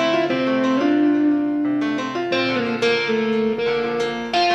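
Background instrumental music: a keyboard melody of held notes, changing about every half second.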